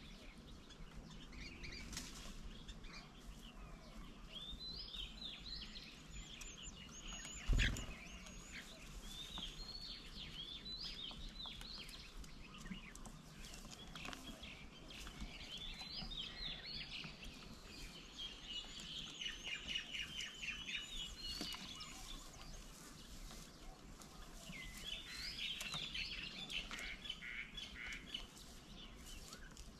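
Several birds chirping and calling in short overlapping phrases, with a quick run of repeated notes near the two-thirds mark. A single sharp thump about seven and a half seconds in stands out as the loudest sound.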